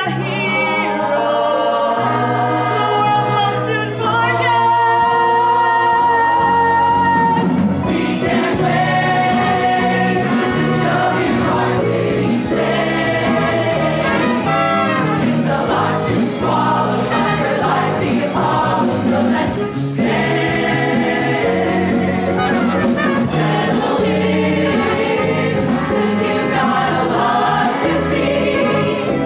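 A musical-theatre ensemble singing a chorus number together over an instrumental accompaniment. The opening bars carry long held notes. From about eight seconds in, the music fills out with a steady beat.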